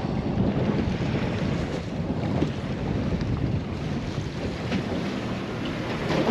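Wind buffeting the microphone over water moving around a fishing boat in strong current, as a steady rushing noise.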